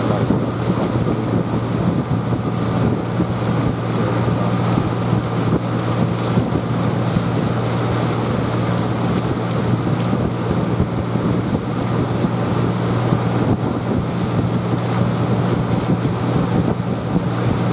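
Boat motor running steadily with a constant low hum, mixed with wind noise on the microphone.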